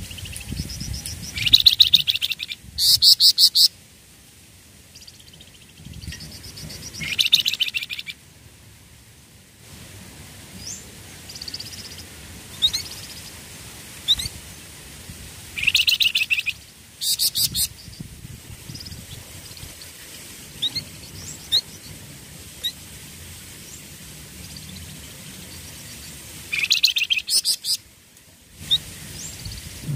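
Flamboyan songbird singing: four loud phrases of fast, rattling trilled notes, with single short rising chirps in between.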